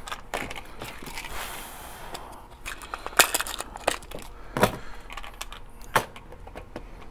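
A handful of light, sharp clicks and knocks from small metal reloading tools being handled, as a cutter head is taken out of a case trimmer and the next one readied.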